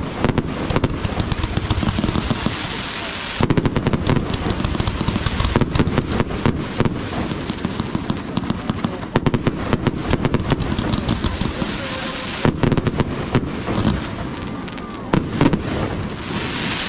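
Fireworks display: a dense, fast run of bangs and crackles from aerial shells bursting overhead, with loud peaks over and over.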